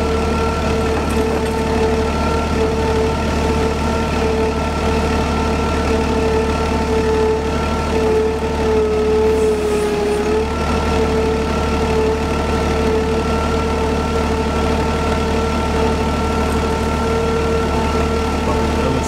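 Clark forklift engine running steadily, with a constant high whine over a low rumble; the whine sags briefly in pitch about halfway through, then steadies again.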